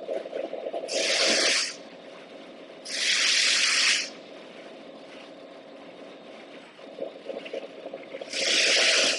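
Three short bursts of air hiss from a CNC turret punch press, each about a second long, the last near the end, over a low, steady rattle.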